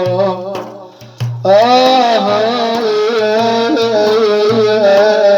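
Arabic song: a singer holding long, wavering notes over a steady hand-drum beat. The music briefly drops away about a second in, then comes back loud with the voice and accompaniment.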